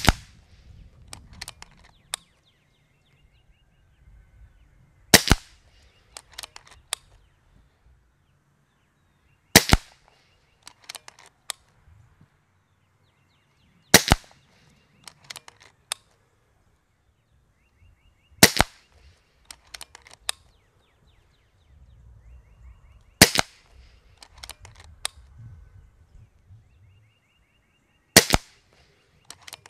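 Kral Puncher Breaker .22 PCP bullpup air rifle firing seven shots, about one every four and a half seconds, each sharp crack followed by a few lighter clicks.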